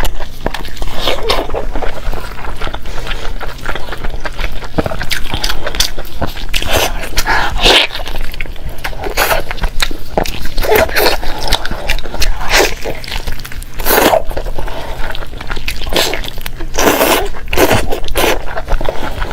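Close-miked eating: a person chewing and biting food, with irregular wet clicks and crunches.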